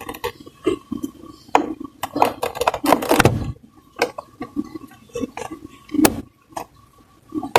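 Plastic door-trim pieces clicking and knocking as they are pried and handled with a plastic trim tool, in irregular sharp clicks with a denser clatter about two to three seconds in.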